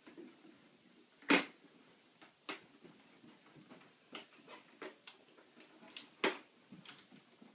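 Irregular knocks and taps of hand work on a wall under construction, about a dozen in all, the loudest a sharp knock about a second and a half in and another near the end.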